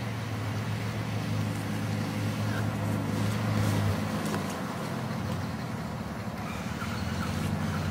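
Lifted off-road SUV's engine running at low revs as it crawls along a dirt track toward the camera, growing louder about halfway through and then easing off.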